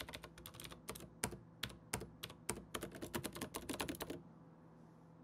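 Cherry MX Green clicky switches with zinc metal keycaps being mashed quickly and unevenly, each press a sharp click with a metallic clack. The keystrokes stop about four seconds in.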